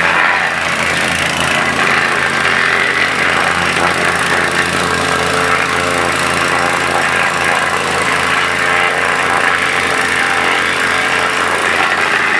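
Gas-engine plate compactor running steadily while it vibrates across a new patio to compact it.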